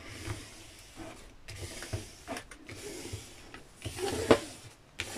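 Plastic scraper and fingertips rubbing and sliding over the clear plastic cover film of a diamond painting canvas, smoothing it down to push trapped air out. A series of uneven scraping strokes, with one sharper, louder scrape about four seconds in.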